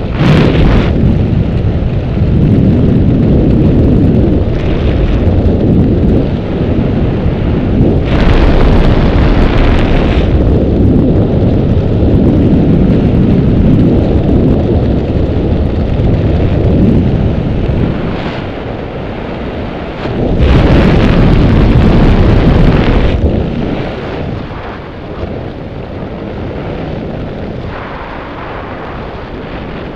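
Wind buffeting a helmet camera's microphone during a parachute canopy descent: a heavy, rumbling rush of air. It surges louder twice, about a third of the way in and again about two-thirds in, then eases off toward the end.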